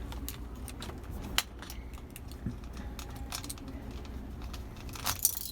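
Light clicks and taps of small metal parts being handled while a crane-machine claw is worked on, with a sharper click a little over a second in and a quick cluster of clicks near the end.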